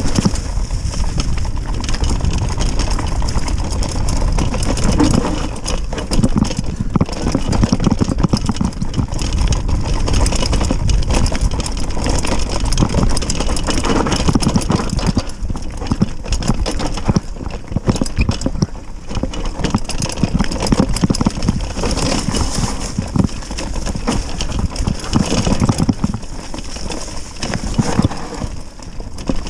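Mountain bike descending a rough downhill trail at speed: a constant irregular rattle and clatter of the bike over rough ground over a steady low rumble.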